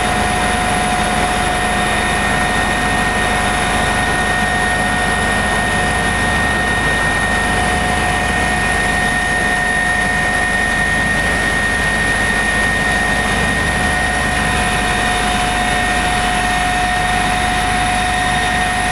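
Eurocopter EC145 twin-turbine helicopter running steadily: an unchanging rumble with two steady high whines over it.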